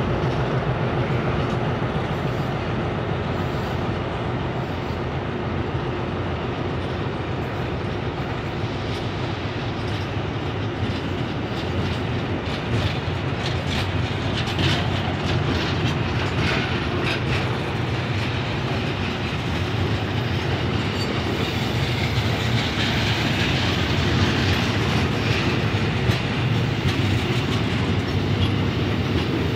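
Loaded ballast hopper wagons of a stone train rolling past on steel wheels: a steady rumble of wheels on the rails, with clicks from the wheels over the rail joints, most of them around the middle.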